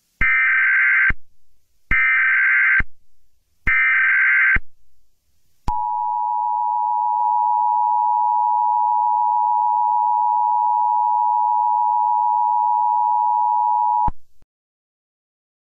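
Emergency Alert System tones: three bursts of SAME header data, each about a second long, then the steady two-tone attention signal held for about eight seconds before it cuts off abruptly. Together they announce the start of an emergency alert message.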